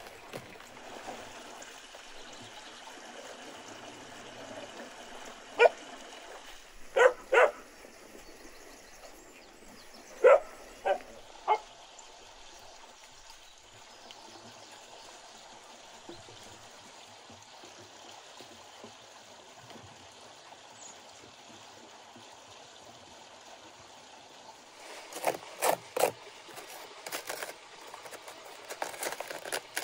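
A dog barks six times in short groups between about six and twelve seconds in, over a steady background hiss. Near the end, a metal spoon scrapes and clicks against the inside of a hollowed-out cabbage head.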